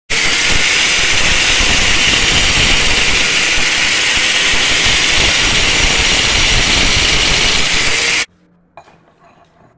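Angle grinder grinding steel clamped in a bench vise: a loud, steady hiss with a faint high whine, cutting off abruptly about eight seconds in.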